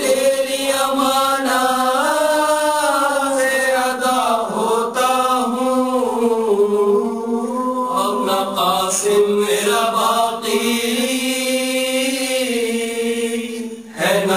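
A solo voice chanting a Muharram lament (noha) in long, drawn-out, wavering notes, with a brief dip just before the end.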